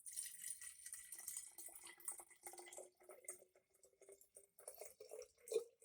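Juice being poured into a glass, the splashing pitch rising slowly as the glass fills, with drips near the end.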